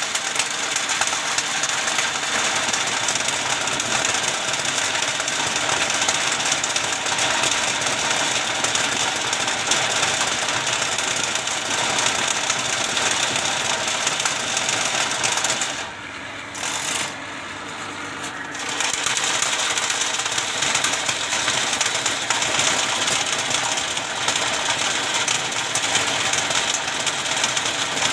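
Ridgid drain-cleaning machine running, its spinning steel snake cable rattling steadily as it turns in the pipe. The noise drops away for about two seconds a little past the middle, then picks up again.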